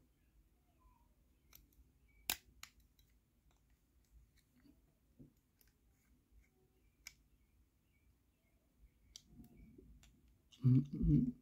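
Small plastic clicks and taps from handling a car key fob's plastic shell as the back cover is fitted and pulled apart, with one sharper click a couple of seconds in. A louder low humming sound comes in near the end.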